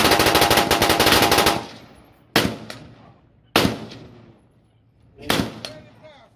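AK-pattern rifle gunfire at a shooting range: a fast, dense string of shots for about the first second and a half, then three single shots spaced a second or more apart, each trailing off in echo.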